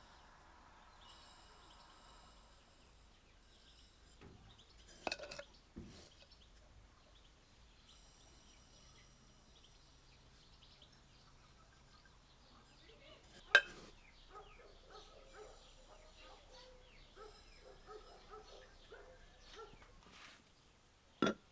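Quiet outdoor ambience with faint bird chirping, broken by a few sharp knocks or clicks, the loudest about two-thirds of the way through and another just before the end.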